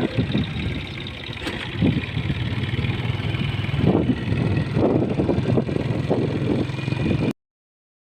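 Vehicle engine running steadily, heard from on board, with a few louder swells; all sound cuts off abruptly near the end.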